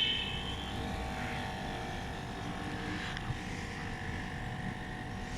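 Midea split air conditioner's outdoor unit running steadily just after being switched on in heating mode, with a short high-pitched beep at the very start.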